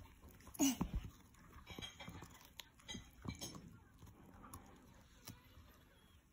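Miniature schnauzer gnawing a knotted chew bone, with scattered crunching clicks every second or so. A short vocal sound comes just under a second in.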